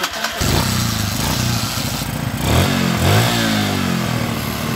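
Kawasaki Kaze R motorcycle engine, running on a newly fitted Honda Supra 125 carburettor, changes from a rapid ticking to steady running about half a second in. A little past halfway it is revved briefly, the pitch rising and falling back. This is a test run before the carburettor's air screw is adjusted.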